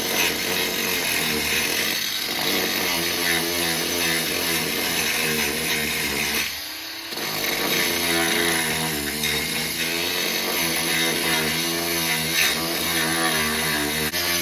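Handheld power tool cutting into a fibreglass boat's rotten marine-ply transom, its motor pitch wavering as it loads up in the cut. It eases off briefly about seven seconds in, then bites in again.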